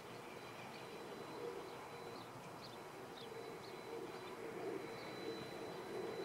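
Outdoor ambience of birds calling: short high chirps, and low cooing that grows stronger in the second half, over a steady thin high tone.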